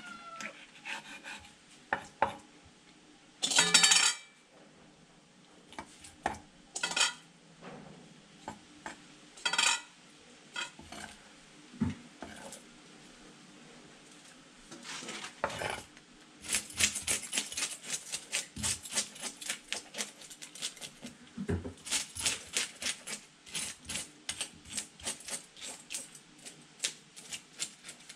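Large kitchen knife scraping on a wooden chopping board and over a tilapia: scattered scrapes and knocks at first, then, from about halfway through, quick repeated scraping strokes, about three a second, as the scales are scraped off the fish.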